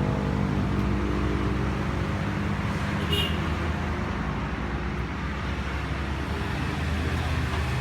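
Steady low background rumble, with a brief high chirp about three seconds in.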